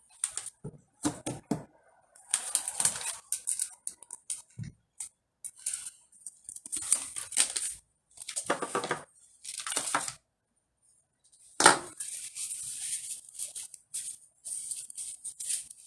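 Handling of a resin ball-jointed doll and its packaging: irregular rustling and light clicks in short bursts, with one sharper knock about twelve seconds in.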